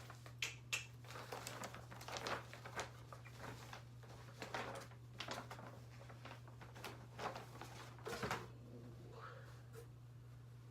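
Irregular rustling and light clicking as packaging and a shirt are handled and unfolded, over a steady low electrical hum.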